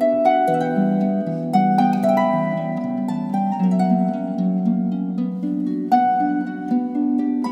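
Background music: a slow melody of plucked strings, each note starting with a sharp pluck, over held lower notes.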